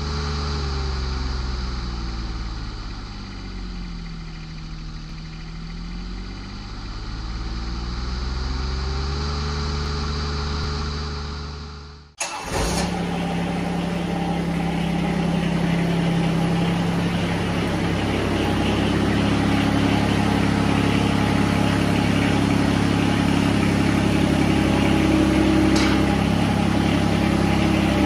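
For about twelve seconds, a droning hum whose pitch sinks and then climbs back, cutting off abruptly. Then the John Deere X758's three-cylinder diesel engine runs steadily as the tractor drives slowly up over the mower deck.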